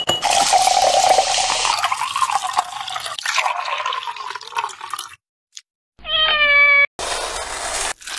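Liquid pouring over ice into a glass for about five seconds. Then a cat meows once, about six seconds in, followed by a second-long burst of hissing, scraping noise.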